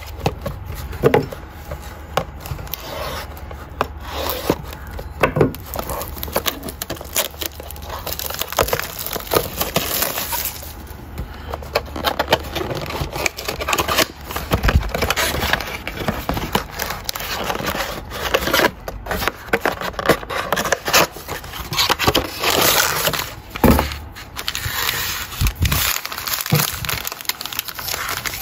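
Clear plastic wrap and cardboard of a Panini Mosaic football card box being torn open and handled: irregular crinkling, crackling and tearing. Foil card packs rustle near the end.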